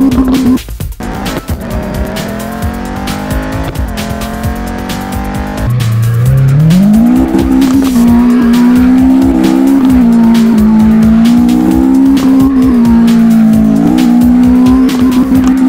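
Toy RC car's small electric drive motor and gearbox whining. The pitch climbs steeply about six seconds in as the car speeds up, then wavers up and down with the throttle.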